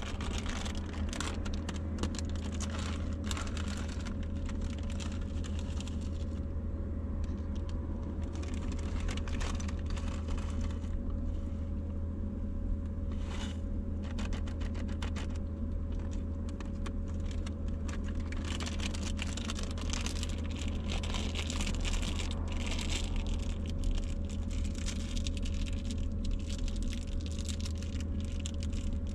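Plastic food packets being handled and opened, heard as scattered rustling and light clicking. Underneath runs a steady low hum with a faint constant tone.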